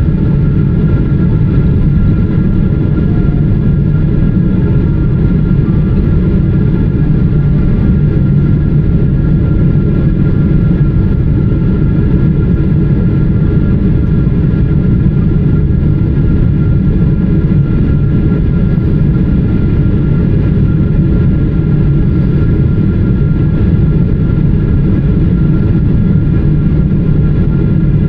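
Steady cabin roar inside a Boeing 777-300ER airliner on approach: engine and airflow noise, heaviest in the low range, with a few faint steady high tones above it.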